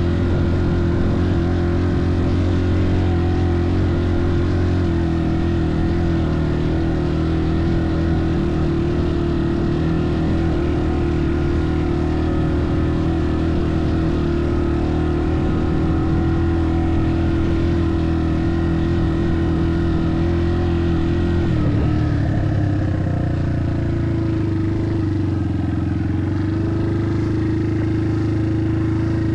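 Motorbike engine running at a steady speed, its note shifting a little over 20 seconds in.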